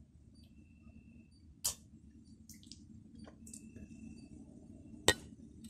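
Quiet drinking from a mug: a few soft sips and short clicks, with one sharper click near the end.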